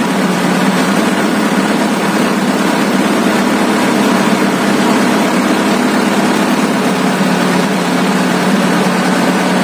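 Wheel loader's diesel engine running steadily while its newly repaired air compressor pumps up the air-brake pressure.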